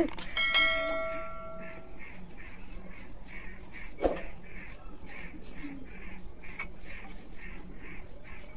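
A sharp metal clink at the start that rings on for about a second and a half, and a single knock about four seconds in, as a knife works on green plantains beside a steel bowl. Behind it a faint bird call repeats about twice a second.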